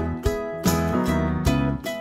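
Background music: plucked-string notes over a bass line, with a steady beat.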